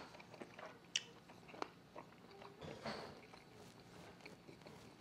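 A person biting into and chewing a grilled buffalo chicken wing, faint, with a few small crunchy clicks.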